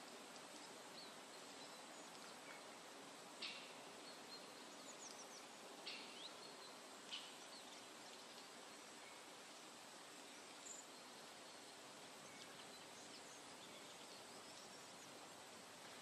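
Faint forest ambience with a few short, sharp, high bird chirps in the first half and some faint thin whistled calls.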